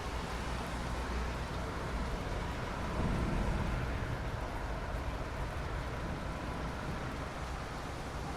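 Steady rain falling, an even hiss with a low rumble underneath, swelling briefly about three seconds in.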